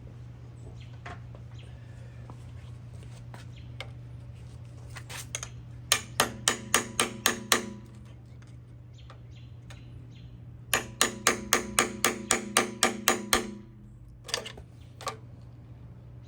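A hammer striking metal in two quick runs of blows, about five a second, then two single knocks, to break loose an oil pan glued to the engine block with RTV sealant. A steady low hum lies under it.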